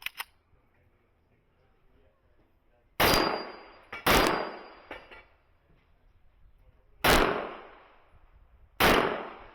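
Four handgun shots, each with a short ringing echo: two about a second apart, then a pause of three seconds, then two more close together near the end.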